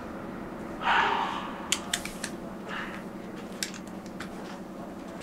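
Room tone with a steady low hum, a brief soft rush about a second in, and a few light clicks.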